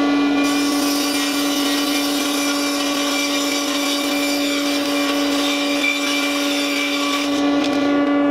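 Table saw running at speed with a steady hum while 3/4-inch plywood is ripped lengthwise; the harsh cutting sound of the blade in the wood starts about half a second in and stops about a second before the end, leaving the saw running free.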